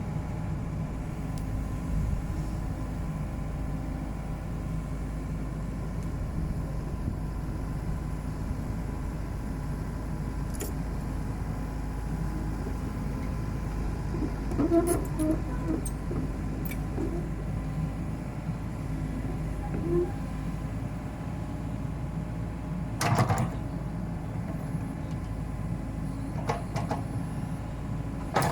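Komatsu PC78UU excavator's diesel engine running steadily, with a few brief knocks from the machine, the loudest about 23 seconds in.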